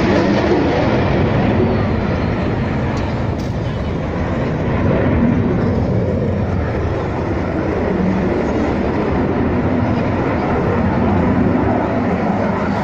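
Belgian Air Component F-16A MLU fighter jet flying a display, its single turbofan engine making a loud, steady jet noise that swells and eases slightly as the aircraft manoeuvres.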